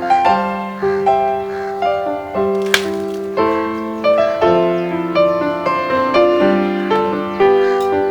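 Background music: a piano-like keyboard melody of struck notes that start sharply and fade, with a single sharp click about three seconds in.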